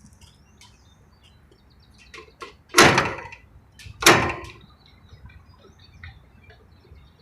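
A few light knocks, then two loud clunks about a second apart, from hardware on a Carrier rooftop HVAC unit being handled.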